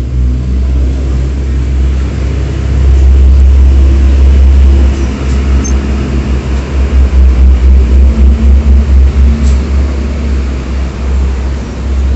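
A motor engine running with a steady low rumble, louder from about three seconds in and pulsing in level in the second half.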